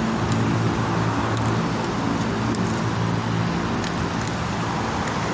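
Steady road-traffic noise with the low, even hum of a running engine underneath.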